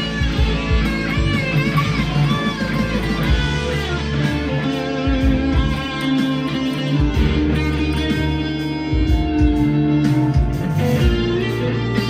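PRS 245 electric guitar played through high-gain distortion at an up-tempo pace: fast picked lead lines with bent notes, over long-held low notes.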